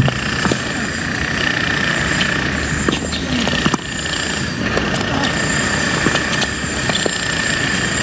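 Tennis rally under loud, steady background noise with a high steady whine running through it. A few sharp pops of racquets striking the ball stand out above it.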